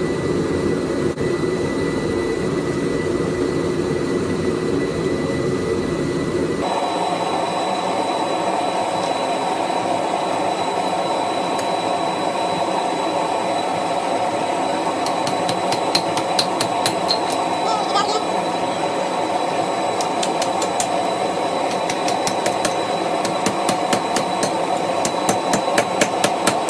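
Blacksmith's forge running with a steady rushing noise, its tone shifting about seven seconds in. From about halfway, light hammer blows on hot steel come a few a second, quickening near the end.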